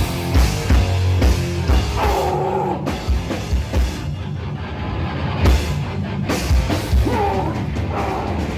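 Hardcore band playing live and loud: heavy distorted electric guitars, bass and drum kit.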